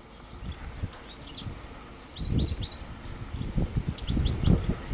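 Small birds chirping in quick clusters of short high notes, about a second in, again around two seconds in and near the end, over irregular bursts of low rumble.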